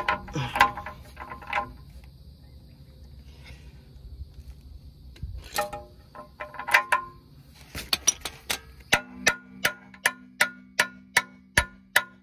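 Steel hand tools clinking and clicking on the Land Cruiser's lower steering-knuckle nuts and studs, in scattered knocks that ring briefly. About nine seconds in a music track starts: an even ticking beat, a little over two ticks a second, over a held low note.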